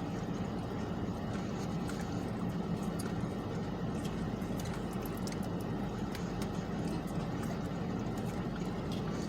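A steady low hum, with faint small clicks scattered through it.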